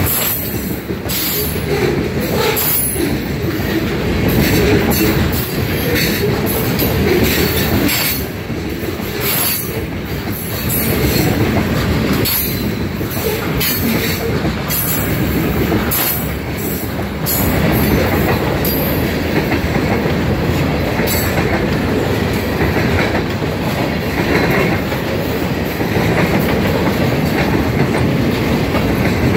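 A freight train's covered hopper cars and boxcars rolling past close by: a loud steady rumble of steel wheels on rail, broken by many brief, sharp clicks and squeaks from the wheels.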